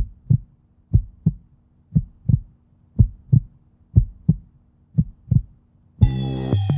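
Heartbeat sound effect: a low double thump about once a second, six beats in all. About six seconds in, music starts with a deep bass and a falling synth sweep.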